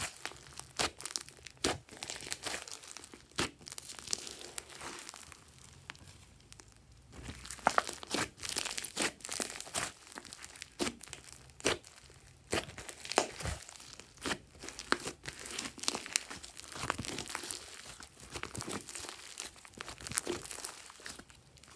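Hands squishing, folding and stretching a large mass of mixed slime: irregular sticky crackles and sharp wet pops, several a second at times.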